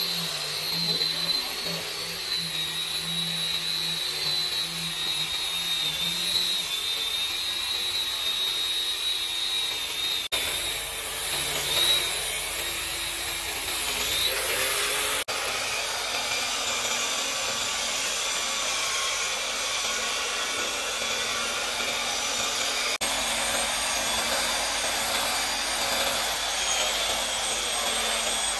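Hand-held electric power tools sanding and planing the edge of a solid ironwood slab, in several short takes: a disc sander with a steady high whine for the first ten seconds or so, then a round-pad sander, and near the end an electric hand planer, each running steadily against the wood.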